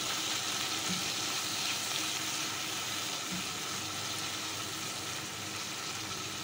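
Diced chicken frying in hot oil in a wok, a steady sizzle, while it is stirred with a silicone spatula.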